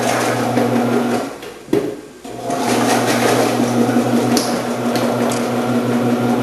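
Commercial vegetable-prep machine's electric motor running with a steady hum while its slicing and dicing discs cut potatoes into cubes. It stops about a second in, a click follows, and it starts up and runs again from about two and a half seconds in.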